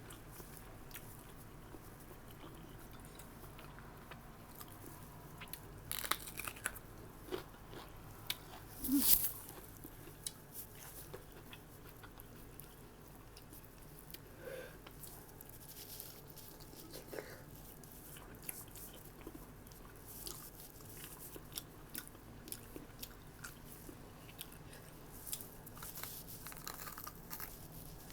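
Close-miked chewing and biting, with many short scattered mouth clicks and crunches; the loudest come about six and nine seconds in.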